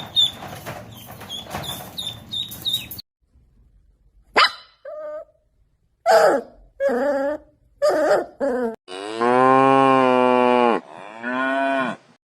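High, rapidly repeated chirps for about three seconds. After a short pause comes a run of short dog barks, then a cow moos: one long, steady moo and a shorter one after it.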